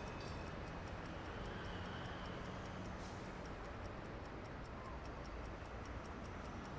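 Quiet room tone: a steady low hum with faint, quick, evenly spaced ticking.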